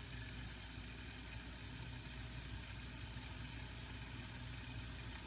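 Kitchen faucet running steadily, a stream of tap water splashing onto raw chicken pieces in a metal stockpot as the pot fills.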